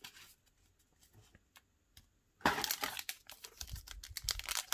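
Foil wrapper of a Digimon Card Game booster pack crinkling as it is picked up and handled in the hands. The crinkling starts about halfway through, after a few faint soft taps.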